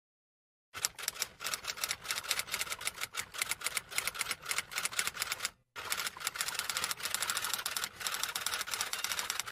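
Rapid, uneven clicking of keys being typed, starting about a second in, with a brief break a little past halfway.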